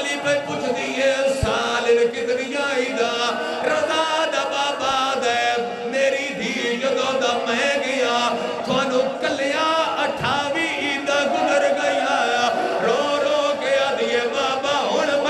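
A large crowd of male mourners chanting and wailing together in many overlapping voices, loud and continuous: a mourning lament during Shia azadari.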